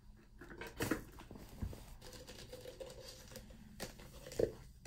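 Light rustling and clicks of plastic toss rings and a plastic cone being handled, with a louder knock about four and a half seconds in as the cone is set down on the carpet.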